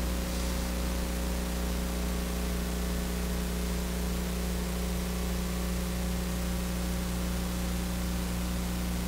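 Steady electrical hiss with a low, even hum: the noise floor of the audio feed, with no other sound standing out.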